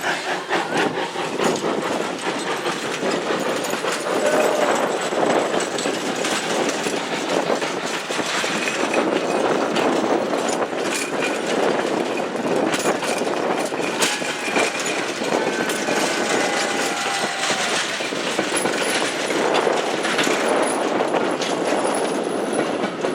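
A train rolling along the track: a steady rolling noise with scattered clicks from the wheels and rails.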